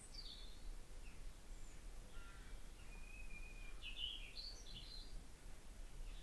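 Faint birdsong: scattered short, high chirps and whistles, busiest from about three to five seconds in, over a steady low background hum.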